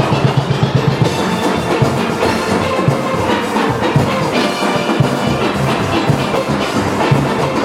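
A steel orchestra playing a full-band tune on steelpans, with a steady beat of hits in the bass.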